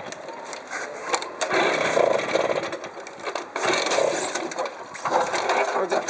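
Simson SR2 moped being pedal-started: the pedal crank, chain and 49 cc two-stroke engine turning over in rough, scraping strokes about once a second, without the engine catching and running.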